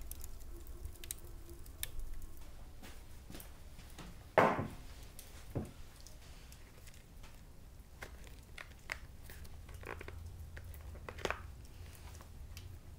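Scattered small clicks and handling noises, with a sharp knock about four seconds in, a smaller one a second later and another near the end.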